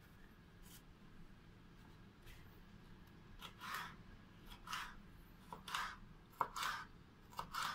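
Kitchen knife cutting a red bell pepper into strips on a wooden cutting board: short slicing strokes, about one a second, starting about halfway through.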